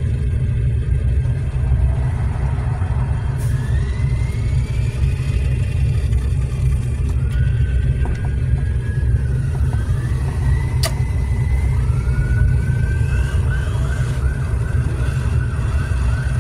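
Steady low rumble of wind and road noise on the microphone as it follows a Kyosho Fazer Mk2 electric RC car on asphalt, with faint motor whines gliding up and down as it speeds up and slows. About three-quarters of the way through, a faint warbling siren from the police car's sound unit comes in.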